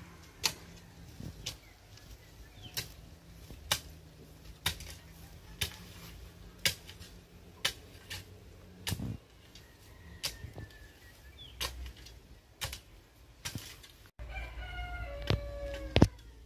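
A shovel blade striking dry, hard soil in repeated digging strokes, a short knock about once a second. Near the end a rooster crows.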